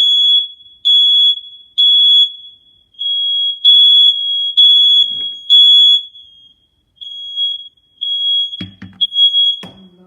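Smoke alarm, its test button held, sounding the evacuation signal: loud, high-pitched beeps in groups of three about a second apart with a longer pause between groups. The last group is fainter, and a couple of thumps come near the end.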